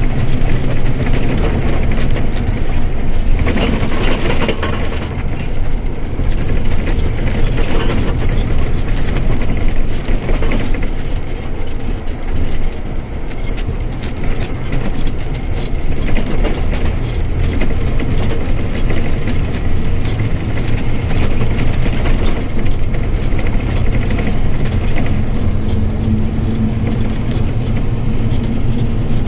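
Mercedes-Benz OF-1722M bus's diesel engine running while under way, a loud steady drone with scattered clicks and short hisses. A steady whine comes in near the end, the kind of differential whine the recording sets out to capture.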